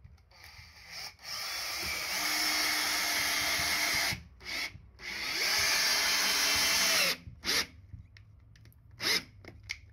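Makita cordless drill driving a bolt with a socket bit down through a rubber pad into the timber plate. There are two long runs, of about three and two seconds, each followed by a few short bursts as the bolt is snugged down.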